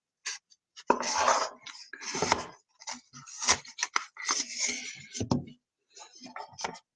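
Football trading cards and their packaging being handled and opened: irregular rustling and crinkling with short clicks of cards and wrapper, pausing briefly near the end.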